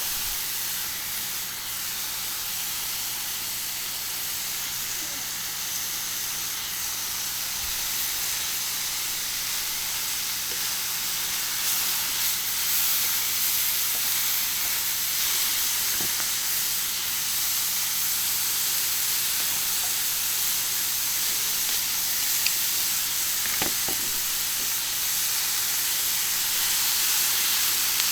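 Beef tongue and skirt steak sizzling on a hot iron griddle: a steady sizzle with a few sharp pops, the loudest about halfway through and near the end.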